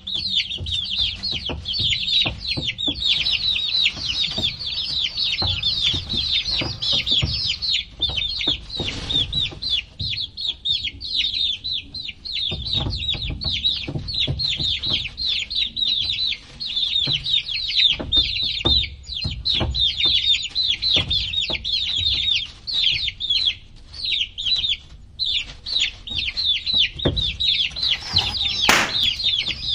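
A crowd of baby chicks peeping without pause, many short high peeps overlapping in a dense chorus. Scattered low knocks and bumps sound underneath.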